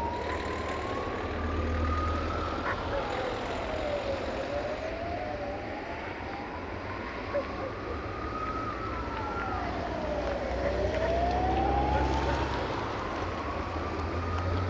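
A wailing siren that slowly rises in pitch and then drops back, about once every five seconds. Under it is the low steady rumble of a diesel locomotive's engine.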